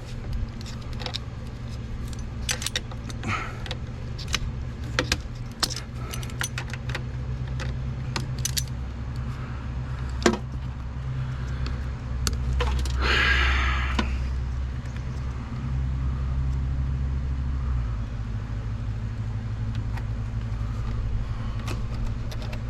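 Wrench and hand tools clicking and clinking on metal while a utility vehicle's battery is disconnected: scattered sharp ticks, with one short scraping noise about halfway through. A steady low hum runs underneath.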